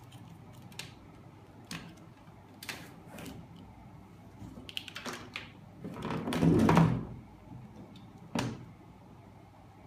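Plastic cases of 12 V sealed lead-acid batteries being handled and shifted on a rubber mat: scattered light knocks and clicks, a louder burst of handling noise lasting about a second past the middle, and one sharp knock near the end.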